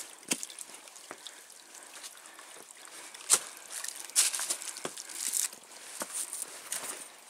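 Footsteps scrambling over rocks and loose stones: irregular crunches and knocks, with a sharper knock about three seconds in.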